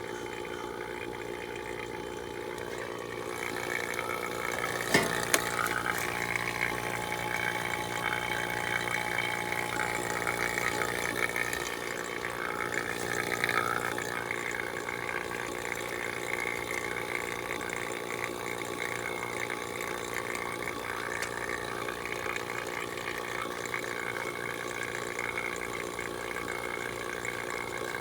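A machine running steadily with a hum. It gets louder about four seconds in, with two sharp clicks about five seconds in.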